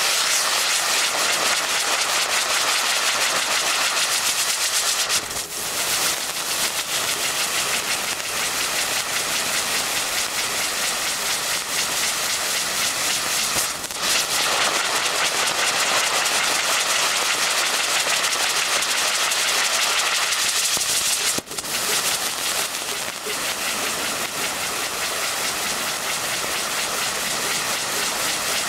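Nico Spirit Sun firework wheel spinning, its burning drivers giving a loud steady hiss. The hiss breaks off briefly three times, about five, fourteen and twenty-one seconds in, as the wheel passes from one effect to the next.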